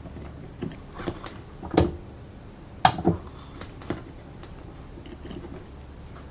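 Alligator clips and test leads being handled on a bench: a handful of light metal clicks and clacks as the clips are opened and snapped onto bulb-holder terminals, the clearest about two and three seconds in.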